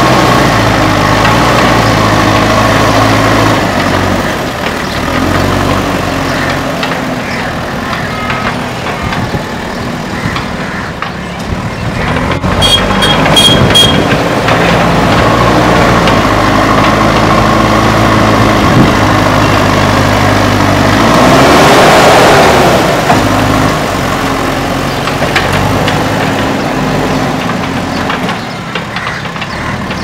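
JCB 3DX Super backhoe loader's four-cylinder diesel engine running and revving up and down under load as it pushes soil with its front bucket. A short series of high beeps sounds just under halfway through, and the engine noise swells to its loudest about two-thirds of the way in.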